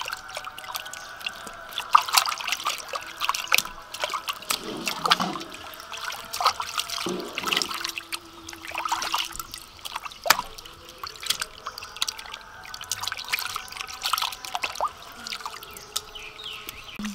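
Hands rinsing raw chicken breasts in a large metal basin of water: irregular splashing, sloshing and dripping as the meat is rubbed and lifted in and out of the water.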